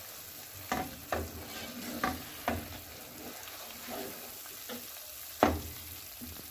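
A wooden spoon stirs thick halwa in a dark non-stick pan, with several short scrapes and taps against the pan, the loudest near the end, over a steady low hiss of cooking. The halwa is at its finished stage, coming away from the pan without sticking and turning round with the spoon.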